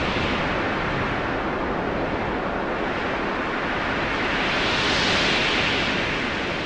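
A loud, even rushing noise like surf or wind, with no tones or clicks, swelling to a peak about five seconds in and then easing off.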